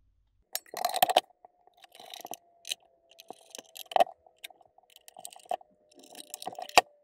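Sheet-metal cover of a TP-Link TL-SG1016PE network switch being set back on its chassis and screwed down with a small screwdriver: irregular metallic clicks, knocks and scrapes, the sharpest about a second in, at about four seconds and near the end.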